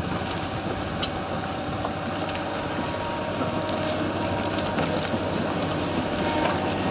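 Diesel engine of a heavy earthmoving machine running steadily at road work, with scattered brief clicks and knocks over it.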